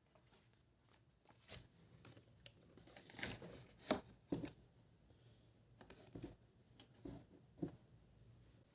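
Close-up handling noises: a series of short, irregular crinkling and tearing sounds with light taps, loudest around the middle.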